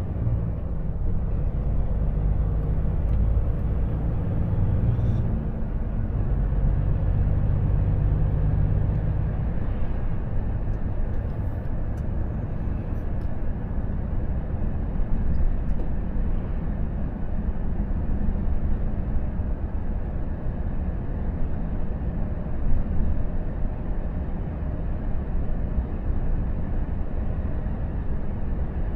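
Volvo FH truck's engine and tyre rumble heard from inside the cab while driving on the road. The engine tones are strongest in the first ten seconds as the truck picks up speed, then settle into a steady cruise.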